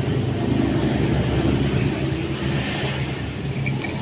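Honda Vario 125 engine running steadily with an even hum, the CVT being checked for an odd noise at its front left, which the mechanic suspects comes from worn roller sliders.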